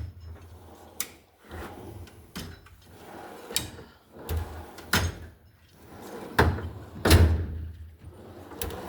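Toolbox drawers being slid open and shut hard, about seven knocks with a low sliding rumble between them, testing whether the tools inside shift.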